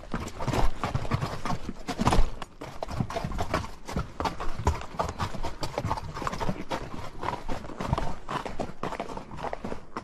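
Horse hooves clip-clopping on a trail, a continuous run of many sharp hoof strikes.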